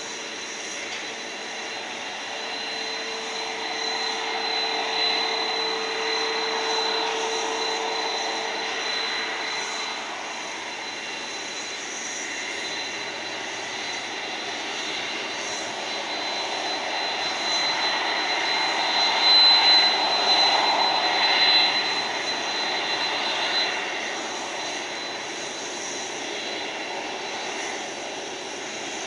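Boeing 767's twin General Electric CF6-80C2 turbofans at taxi power: a steady jet whine with a thin high tone over it. It grows louder a little past the middle as the jet turns toward the listener, then eases off.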